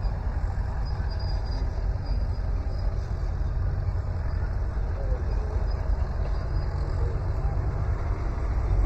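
Outdoor fairground background: a steady low rumble, with faint voices of other people in it.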